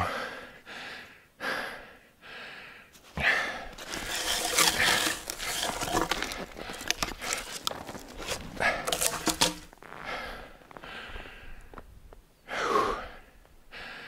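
Footsteps crunching through deep snow, with the branches of a freshly felled tree rustling against clothing. The crunching comes in irregular bursts from about three seconds in, eases off, and there is one more short burst near the end.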